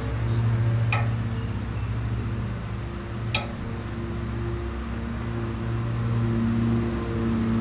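A Tiki Toss ring on its string clinking sharply twice against the metal hook, about a second in and again a couple of seconds later, over a steady low mechanical hum.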